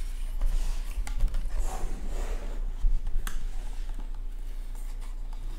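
Cardboard motherboard box being handled and opened: rustling and sliding of the cardboard for the first few seconds, then a single sharp click a little past three seconds in, over a steady low hum.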